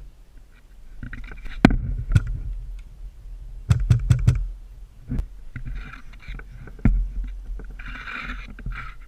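Several sharp cracks over low rumbling and rustling: a single crack at about 1.7 s and another at about 2.2 s, a quick run of four at about four seconds, then single ones near 5 and 7 seconds.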